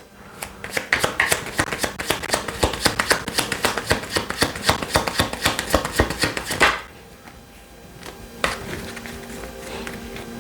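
A tarot deck being shuffled by hand, a fast run of card slaps and flutters for about six and a half seconds, then a single sharper card sound a couple of seconds later.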